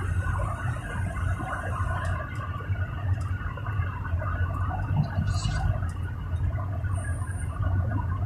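Car cabin noise while driving at highway speed: steady low engine and tyre rumble.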